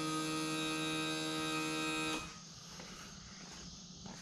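Outboard motor's electric power trim-and-tilt motor whining steadily as it tilts the motor up, then cutting off suddenly about two seconds in.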